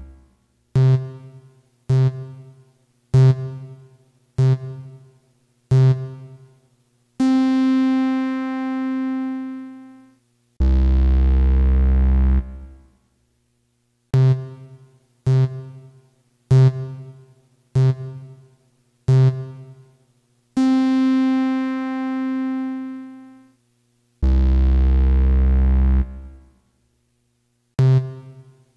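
Electronic synthesizer cues in a repeating timer pattern. Five short keyboard notes sound about a second apart like a countdown, then a long held tone, then a low buzz. The sequence plays twice.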